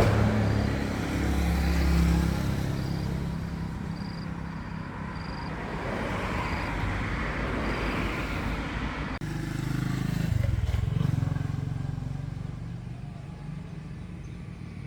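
An engine running, its pitch shifting now and then, with an abrupt change about nine seconds in.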